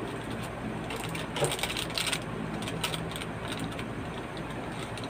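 Small plastic clicks and rattles of a disposable syringe, needle and needle cap being handled as the needle is twisted back on, with a cluster of clicks about one and a half to two seconds in.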